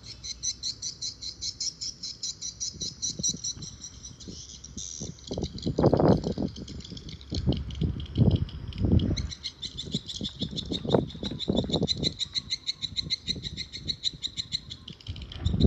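A bird chirping in a fast, even, high-pitched trill that stops for a few seconds partway through, with gusts of wind buffeting the microphone, the loudest about six seconds in and near the end.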